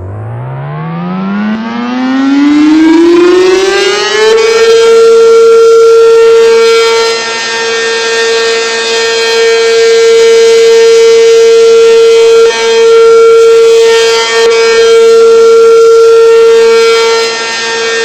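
ACA P-15 siren winding up from a standstill: its pitch climbs steeply for about four seconds, then holds one steady high tone. The tone swells and fades about every five seconds.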